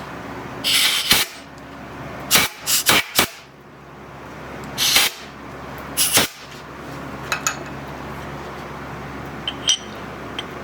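A brush sweeping metal chips out of a milling setup: several short scratchy strokes in the first six seconds, over a steady machine hum, then a few light metal clinks near the end.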